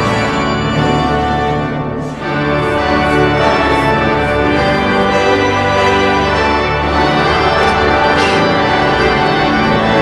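Organ-like electronic keyboard music: full, held chords that change about two seconds in and then run on.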